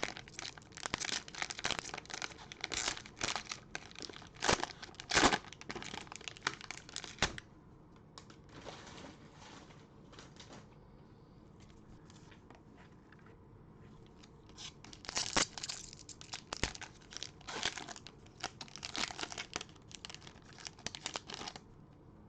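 Cellophane wrappers of trading-card cello packs being torn open and crinkled by hand, in two spells of crackling with a quieter stretch in the middle.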